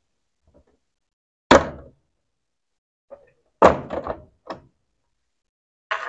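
Plastic retaining clips of an Electrolux LAC11 washing machine's control panel being pried up with a screwdriver and snapping loose: one sharp plastic clack about a second and a half in, then a short cluster of knocks and clacks around four seconds in as the panel comes free.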